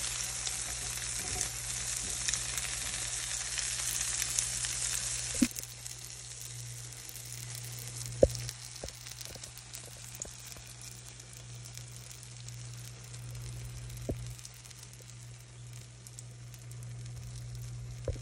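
Egg-and-vegetable-filled potato rings frying in oil in a nonstick pan, sizzling and crackling. The sizzle is loud at first and drops to a quieter crackle about five seconds in, with a few sharp taps along the way, the loudest near the middle.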